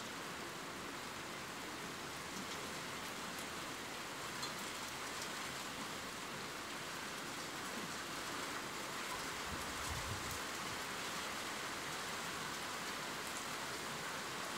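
Steady rainfall: an even hiss of rain with a few scattered drop ticks. A brief low rumble comes about ten seconds in.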